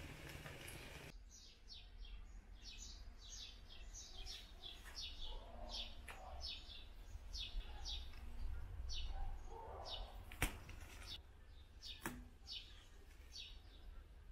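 A small bird chirping faintly, short high calls repeated about two a second, with two sharp clicks in the second half.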